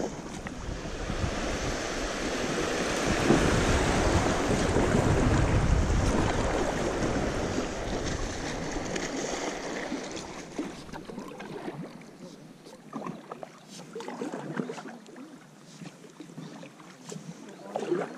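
River water rushing through a shallow riffle around an inflatable kayak, loudest a few seconds in and fading by about halfway. After that come separate splashes of paddle strokes dipping into calmer water.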